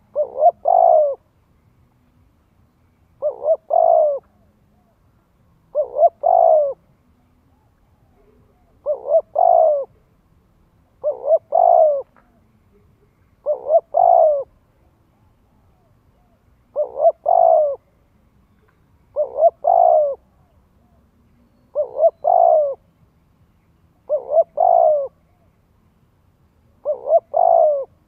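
Caged spotted dove cooing its song over and over, eleven phrases about two and a half seconds apart, each two short coos run into a longer one. This is the decoy (cu mồi) call that keepers use to draw in wild doves and to train young birds to coo.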